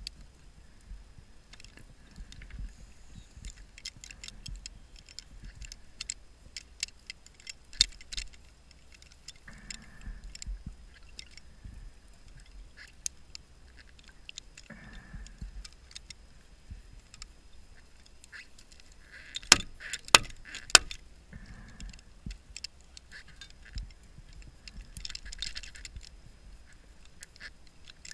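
A scuba diver underwater breathing through a regulator, with exhaled bubble bursts every five to seven seconds. Sharp metallic clicks and knocks of equipment against the wreck come through, with three loud knocks close together about twenty seconds in.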